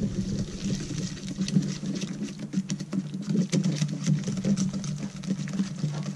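Wire whisk beating thick batter in a stainless steel bowl: fast, continuous clicking and tapping of the wires against the metal and through the batter, over a steady low hum.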